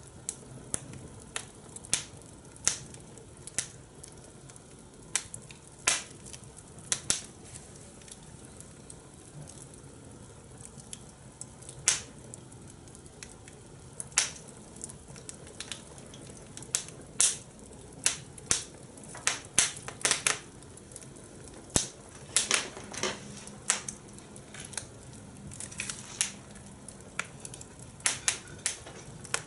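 Fire crackling in a fire pit: irregular sharp pops and snaps, some loud, over a low steady hiss.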